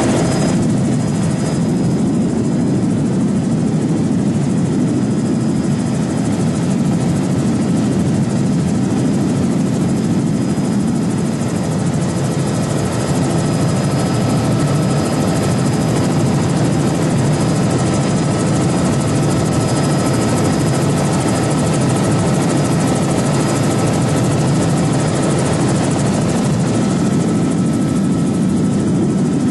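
Small aircraft's engine and propeller droning steadily, heard from inside the cabin, with a few faint steady whining tones above the drone.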